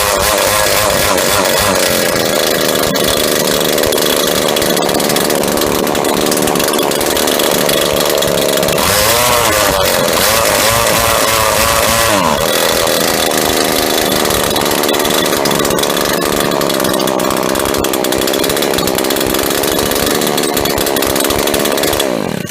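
Husqvarna 24C trimmer's small two-stroke engine running loud and steady, revved up and back down about nine to twelve seconds in, then winding down and stopping near the end. The owner suspects something is wrong with the muffler, which is only tied on with wire.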